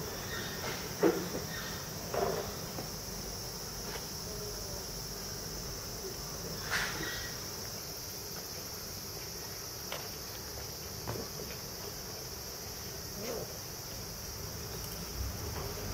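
Steady high-pitched chirring of insects, with a few short knocks and scuffs scattered through it, the loudest about a second in.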